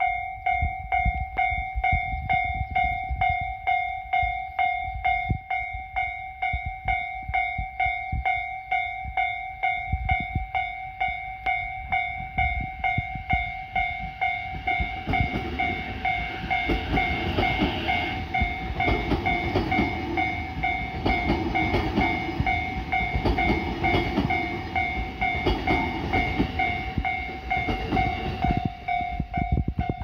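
A Japanese railway level-crossing alarm rings steadily and evenly, about two strikes a second. From about halfway a JR Keiyo Line electric commuter train passes close by, its wheels and running gear rumbling on the rails, until near the end.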